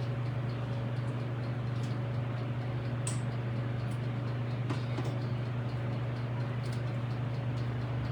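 A knife and fork cutting into baked chicken in a foil-lined baking dish, making a few light clicks and scrapes, over a steady low hum.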